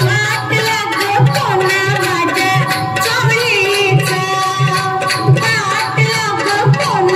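Indian dance music with a melody over a steady drum beat, played over loudspeakers.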